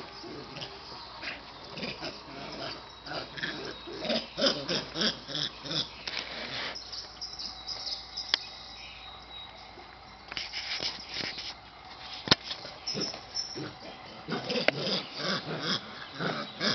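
Dog barking in bouts of short repeated barks, with two sharp clicks in between.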